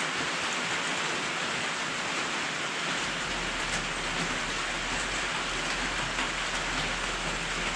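Pouring rain falling on a metal carport roof, a steady hiss of rain.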